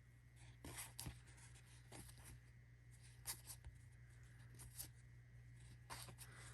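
Faint, scattered soft clicks and rustles of hockey trading cards being handled and slid one by one through a pack, over a steady low hum.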